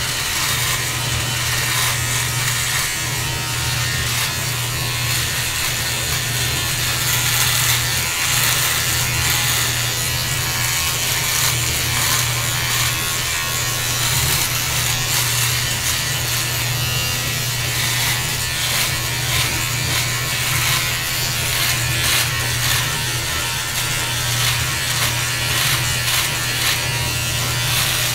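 Handheld electric beard trimmer buzzing steadily while it cuts through beard hair along the jaw and neck, a low hum with a fine crackle from the cutting.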